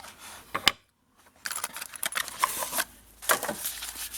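Knife packaging being handled and opened: clicks, scraping and rustling of the box and its contents, with one sharp click a little over half a second in and a brief drop to near silence just after it.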